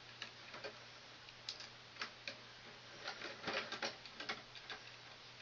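Irregular light clicks and taps of small parts and tools being handled while wiring an HVAC control panel, bunched about three to four seconds in, over a faint steady low hum.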